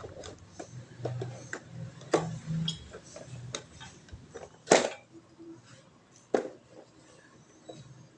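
Sharp clicks and knocks of a hard part being handled and tried out, with three louder knocks about two, five and six and a half seconds in; the part has been found broken and is being checked to see whether it still works.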